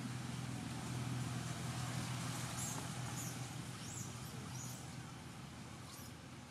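Low, steady hum of a motor vehicle's engine, slowly fading toward the end, with a few short, high chirps in the middle.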